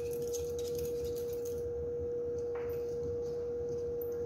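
A steady mid-pitched tone, one unchanging note like equipment hum, runs throughout. Over it, during the first second and a half, comes faint light scraping from a swab being stirred in a glass test tube to mix a bacterial suspension.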